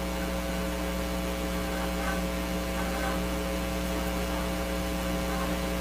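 Steady electrical mains hum with a buzzy row of overtones, unchanging throughout.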